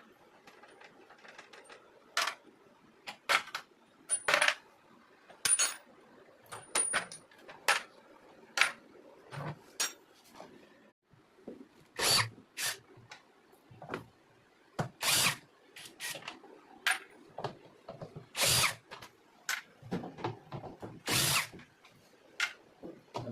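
Power drill-driver run in many short bursts, each under a second, with pauses between, while working on the washing machine's fasteners during the drum exchange.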